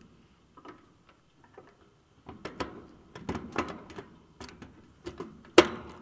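Small hand tools, needle-nose pliers and a screwdriver, clicking and tapping against the contactor's terminal lugs and wires as the line-voltage leads are fitted back on. The clicks come irregularly, with the sharpest one a little over five seconds in.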